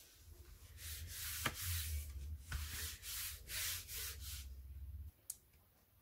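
Hands rubbing and smoothing a folded sheet of cardstock flat against the table to press the fold: a run of dry swishing strokes with a dull rumble under them, stopping about five seconds in.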